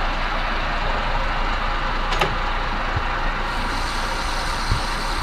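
Metal lathe running steadily, turning aluminum bar stock in a light cut to size. The hiss brightens a little past halfway, with one faint click about two seconds in.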